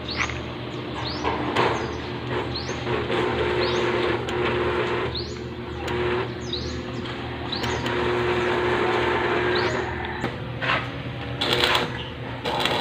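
Electric arc welding on a steel truss: a steady crackling hiss over a low hum. A bird gives short rising chirps every second or so, and a brief louder noise burst comes near the end.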